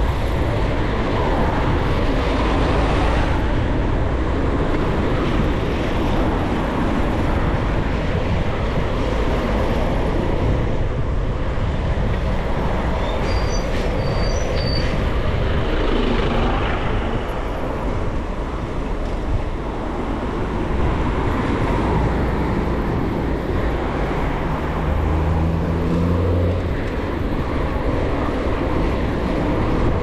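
Wind rushing over the microphone of a riding cyclist's camera, with city road traffic around. A few short high squeaks come about halfway through, and a low engine hum comes near the end.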